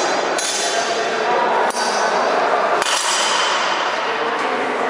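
Longsword blades clashing during free fencing: three sharp metal strikes about a second apart, the last one ringing briefly.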